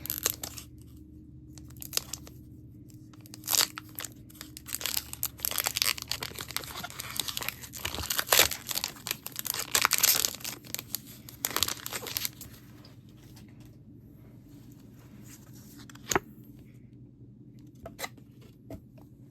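A foil trading-card booster pack wrapper being torn open and crinkled: a dense run of tearing and crackling for most of the first twelve seconds, then a few scattered crinkles and clicks.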